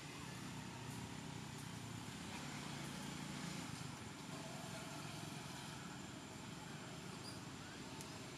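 Faint, steady low rumble of distant motor traffic, swelling a little a few seconds in.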